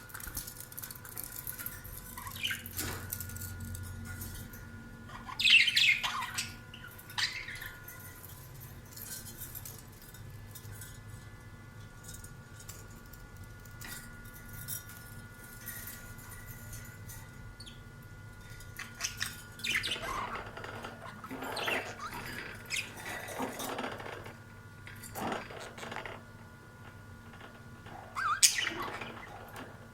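Budgerigars giving short chirps and calls, scattered at first, busier in the second half, loudest about six seconds in and near the end, over a faint steady hum.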